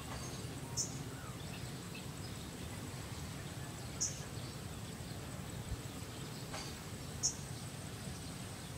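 Outdoor ambience on a pond bank: a faint, steady, high insect hum over a low background hush, with three short high chirps about three seconds apart.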